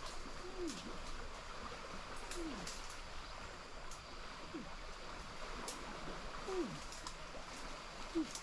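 An animal's short low call, falling in pitch, repeated five times about every two seconds over a steady rush of running water.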